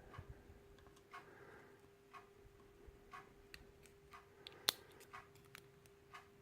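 Faint, irregular small metallic clicks of tweezers picking springs and pins out of a lock cylinder, with one sharper click a little before five seconds in.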